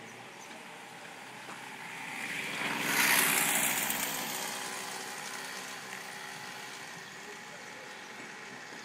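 A vehicle passing close by: its noise swells to a peak about three seconds in and fades away over the next two seconds, over a steady street background.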